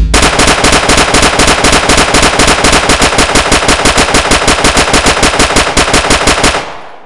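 Machine-gun fire sound effect: one long unbroken burst of rapid shots, about seven a second, that stops shortly before the end and trails off briefly.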